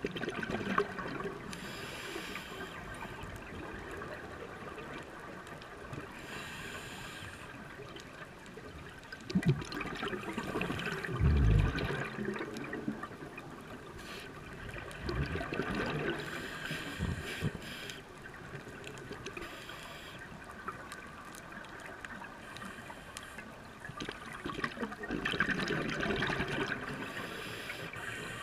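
Scuba regulator breathing heard underwater: a hissing inhale alternating with bursts of bubbling exhaled air, in a slow repeating cycle. A low thump stands out about eleven seconds in.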